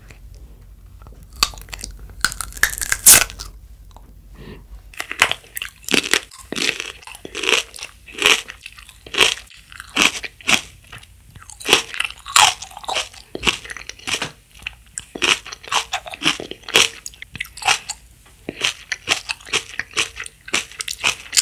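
A raw red mini sweet pepper bitten once, a loud crisp crunch about two to three seconds in, then chewed with steady watery crunches about twice a second.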